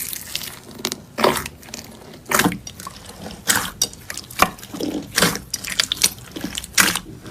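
Slime being squeezed and pressed by hand, making irregular wet squelches and pops about once a second.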